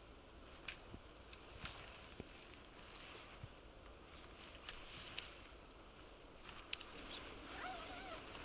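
Faint scattered clicks and rustles of a tent being handled and laid out on frozen heath, over a quiet outdoor hiss.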